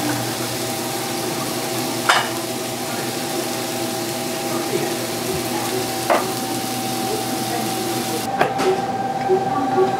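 Food sizzling on a hot pan or griddle, a steady hiss broken by three sharp clinks of a utensil. The sizzle cuts off suddenly about eight seconds in.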